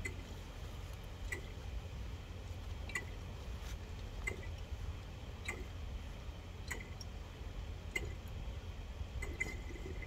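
Water bong bubbling in sparse, irregular blips, about one a second, over a steady low hum. The bong is dirty, which holds back the draw.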